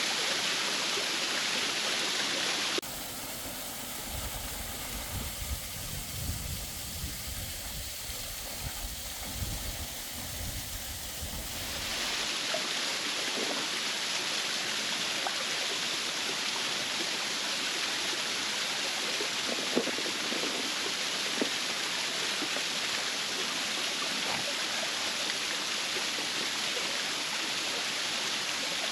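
Waterfall running steadily in winter: a constant rushing of falling water. For about nine seconds starting near three seconds in, the rushing drops back and an uneven low rumble takes over, before the full water sound returns.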